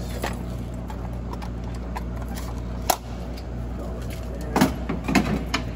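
Clicks and knocks of plastic and metal parts being handled inside an open vending machine, a few single ones and then a cluster near the end, over a steady low hum.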